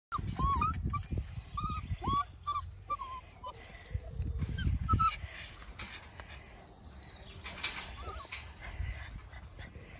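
Puppies whimpering and yipping in many short, high, bending calls, thickest over the first five seconds and then sparse. Low thumping noise runs under the calls.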